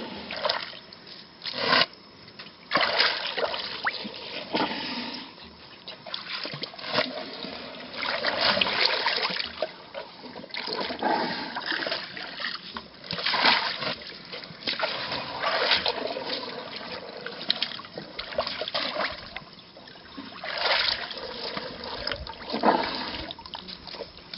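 Pool water splashing and trickling in irregular surges as African elephants draw it up in their trunks to drink.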